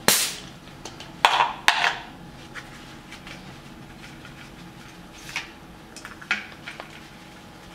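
Compression tester being handled on an aluminium engine valve cover: a sharp noise at the start, two loud metal clacks about a second and a half in, then lighter clicks and scrapes near the end as the gauge hose is fitted into the next spark plug hole.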